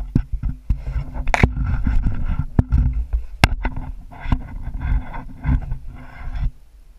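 Handling noise on a GoPro as it rubs and scrapes against clothing and climbing gear, with a dull rumble and many sharp knocks and clicks. It stops abruptly about six and a half seconds in.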